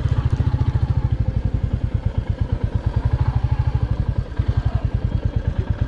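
Royal Enfield Classic 350's 349 cc single-cylinder engine thumping with an even, steady beat while the bike is ridden at low speed. The beat breaks briefly a little past four seconds in.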